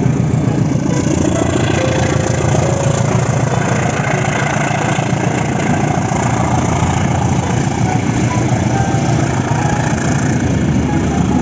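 Diesel locomotive engine running steadily with a low, dense rumble.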